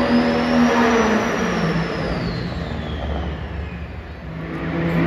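Engine of a pulling truck or tractor running hard, dropping in pitch about a second in and fading, then swelling again near the end. Over it a high whistle rises and then slowly falls away.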